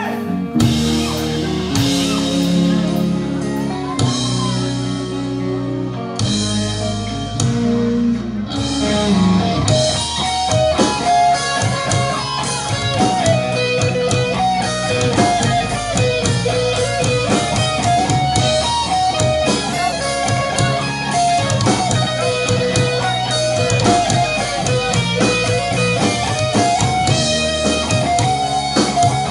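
Rock band music with electric guitars, bass guitar and a drum kit. The opening is lighter and led by guitar; about nine or ten seconds in, the full band comes in with steady drumming.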